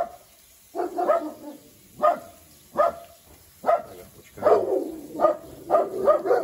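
Dogs barking over and over, a bark roughly every second or less, about nine or ten barks in all.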